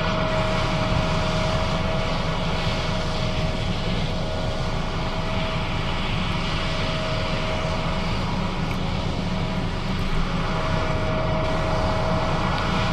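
John Deere S660 combine running steadily while harvesting soybeans: a constant engine drone with a steady whine that fades in the middle and comes back near the end.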